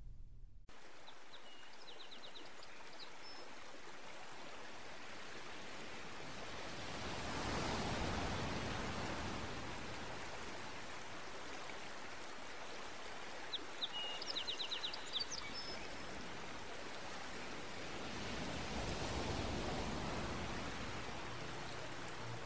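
Steady rush of flowing water that swells and eases twice, with two brief high chirping bird trills, once near the start and once around the middle.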